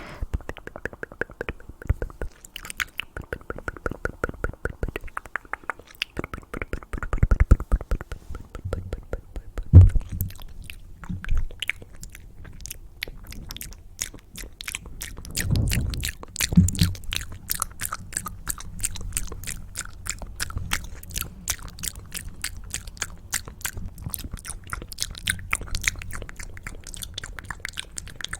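Close-miked ASMR mouth sounds: rapid wet clicks and smacks of tongue and lips in a dense stream, with a couple of louder low thumps near the middle.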